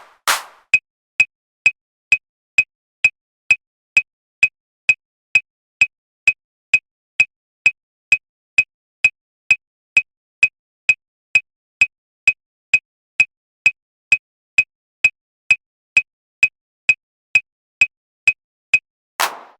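A short, pitched percussion click with a bright ring, repeated at an even pace of a little over two a second, stopping about a second before the end.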